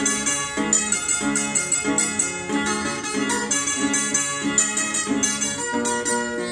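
Three acoustic guitars played together: a plucked melody over chords, in a steady rhythm.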